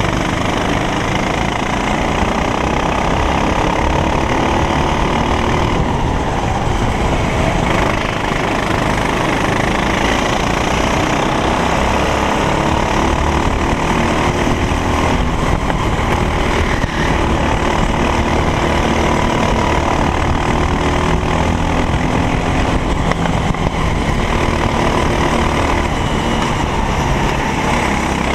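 Racing kart engine running hard during a race, loud and continuous, its pitch rising and falling with the throttle.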